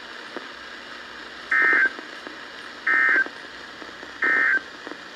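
Emergency Alert System SAME end-of-message data bursts: three short, identical warbling tone bursts, about a third of a second each and evenly spaced, signalling the end of the alert.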